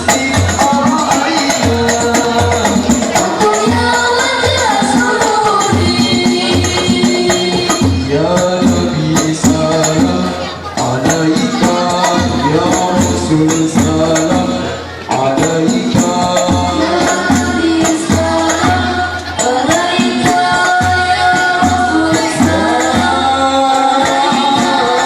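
Banjari music: voices singing Islamic sholawat together over a steady beat of terbang frame drums, with two short dips in loudness about ten and fifteen seconds in.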